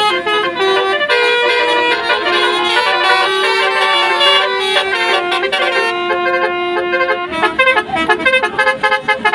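Telolet multi-tone musical horn playing a melody of held notes that change pitch every half second or so, then a quick run of short staccato toots over the last two seconds.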